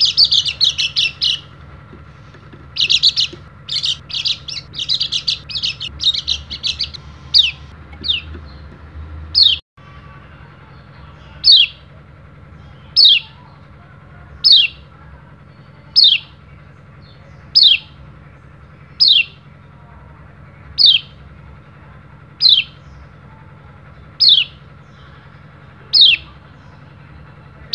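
White-eye (pleci) twittering in quick chattering bursts for the first several seconds, then giving a single sharp call that slides downward in pitch, repeated evenly about every second and a half.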